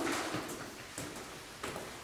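Footsteps on interlocking plastic garage floor tiles: a few irregular soft knocks.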